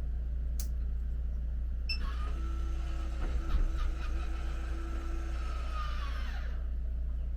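A small electric motor whirring at a steady pitch for about four seconds, starting suddenly about two seconds in and winding down in pitch as it stops, over a steady low hum.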